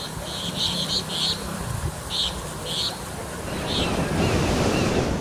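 Floodwater splashing and rushing around a vehicle driving through a flooded street, with a low engine hum and wind on the microphone. A run of short high chirps comes at irregular intervals in the first few seconds.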